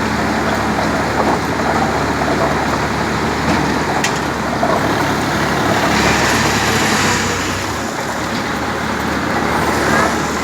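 Tractor engine running steadily, driving a self-loading concrete mixer, with a mechanical rumble. A rushing, grinding noise swells for a couple of seconds just past the middle.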